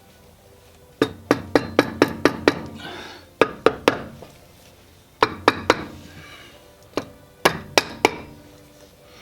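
Hammer tapping on the Land Cruiser's transfer case housing in quick runs of four to seven sharp strikes, several runs in a row.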